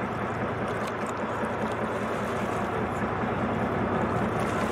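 A boat's engine running steadily at idle: an even low hum under a steady wash of noise.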